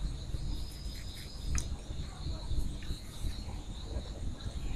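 Quiet background noise: a low rumble with a faint, steady high-pitched trill over it, and a faint click about one and a half seconds in.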